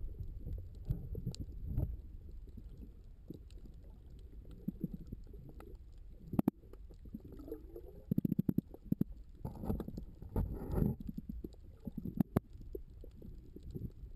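Muffled, rumbling water noise picked up by a camera inside an underwater housing, with a few sharp clicks and a rapid run of pops and bubbling about eight to eleven seconds in.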